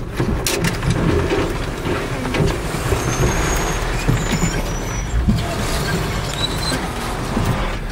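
Off-road truck's engine running under load while branches and brush scrape and drag along the body and windshield, with many scattered knocks and a few short high squeaks about halfway through.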